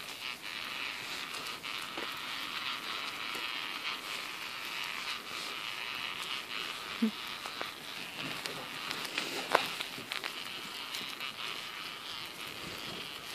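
Odder pram's wheels rolling over a road: a steady crackling hiss with scattered sharp clicks.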